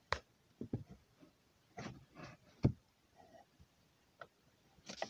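Open-end wrench turning the adjusting nut on the parking-brake tensioner rod under a Toyota Yaris handbrake lever: scattered small metal clicks and knocks, with one louder knock about halfway through.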